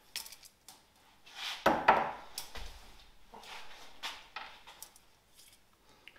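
Hand tools and small brake-pipe parts handled and set down on a wooden workbench: a few separate knocks and clicks, the loudest a thud about two seconds in.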